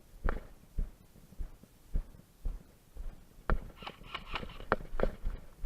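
Footsteps of the player wearing the camera, moving on foot: dull thumps about two a second, with some rustling of gear or brush in the second half.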